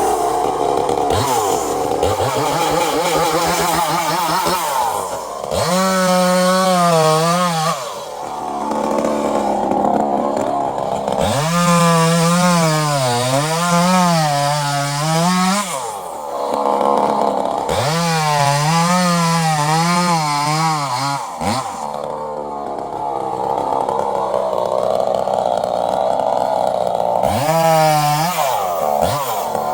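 Two-stroke chainsaw cutting wood, revving up hard four times, its pitch wavering as the chain bites into the wood, and dropping back to rougher, lower running between cuts.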